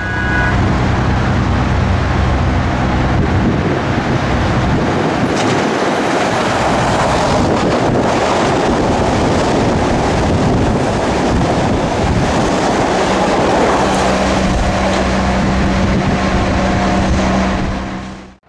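Train passing close by at speed: a loud, steady rush and rumble of wheels on rail, with a low hum joining in for the last few seconds.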